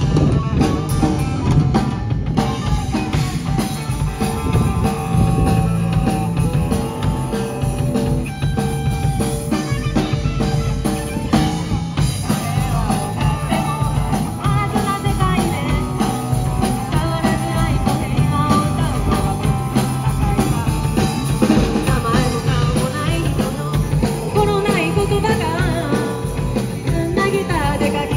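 Live rock band playing: distorted electric guitar, bass guitar and a drum kit, with a sung vocal melody over it in the second half.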